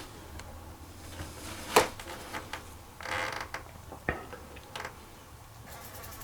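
Creaking and a few sharp clicks from hunters shifting and handling their gear: a loud click about two seconds in, a short creak about a second later, then two softer clicks.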